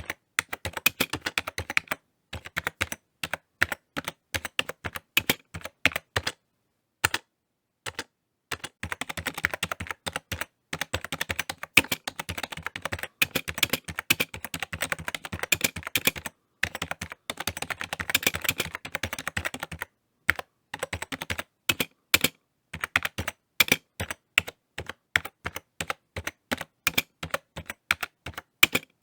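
Typing on a computer keyboard: quick runs of key clicks in uneven bursts, with brief pauses between them.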